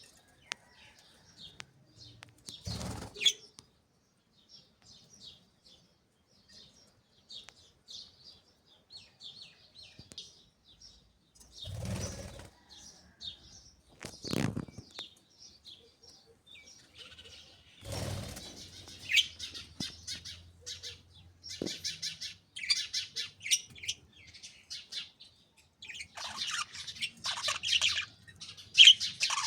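A flock of budgerigars chirping and chattering in high, quick notes, with several short bursts of wing flapping. The chatter grows busier and louder near the end.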